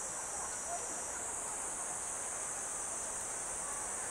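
Steady high-pitched chorus of insects trilling without a break.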